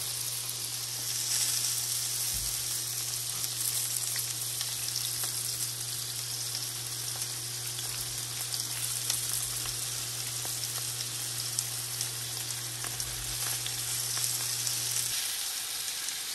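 Pork patties frying in a cast iron skillet: a steady sizzling hiss with small scattered pops. A low steady hum runs under it and cuts off about a second before the end.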